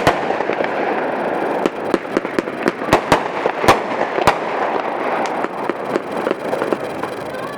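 A 50-shot consumer firework cake firing: sharp reports from shots launching and bursting, several a second at first and sparser later, over a continuous wash of noise.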